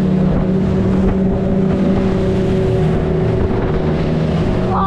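Small outboard motors on racing aluminium jon boats running flat out at a steady pitch, with water spray and wind rushing past the hull.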